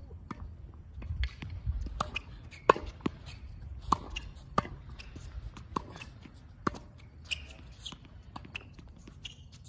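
Tennis balls being struck with racquets and bouncing on a hard court during volley practice: a sharp pop roughly every half second to a second, some louder than others.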